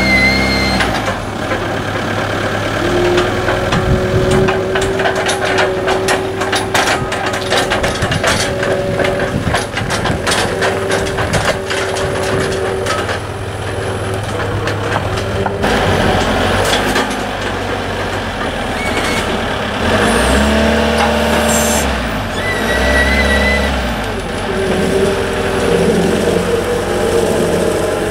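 Linde forklift engine running as it lifts and carries a galvanised steel boat stand, with frequent metallic clanks and rattles and a steady whine over the engine hum. A short beeping sounds near the start and again about three quarters of the way through.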